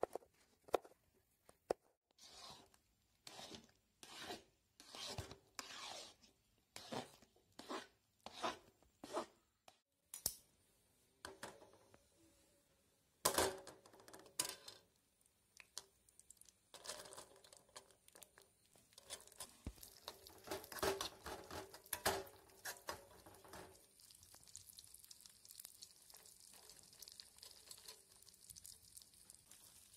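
A knife slicing almonds on a plastic chopping board, in a steady run of short cutting strokes. Then a steel spoon knocks and scrapes in a pan as ghee is stirred. Near the end comes a steady sizzle of cashews and almonds frying in ghee.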